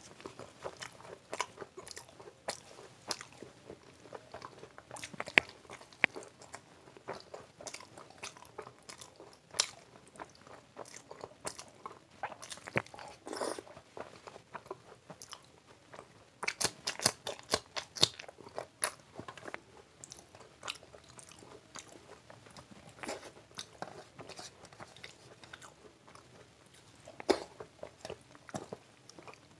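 Close-up eating sounds: a person biting and chewing puri dipped in chana aloo curry, with many sharp, irregular crunches and clicks of the mouth, thickest about halfway through.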